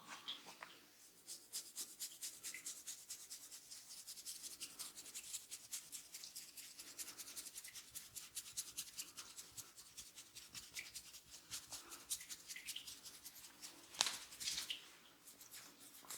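Head massage: hands working rapidly over the scalp and hair, a fast run of short crisp rubbing or patting strokes about five or six a second. One sharper, louder click stands out near the end.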